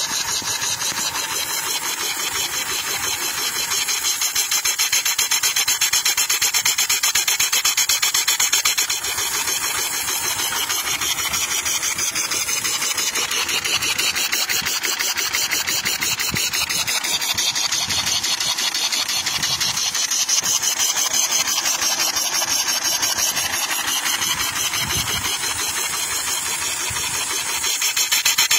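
Gasoline engine converted to run on steam, running fast with a rapid, rasping chuff of exhaust steam and a steady hiss. It gets a little louder a few seconds in and again near the end.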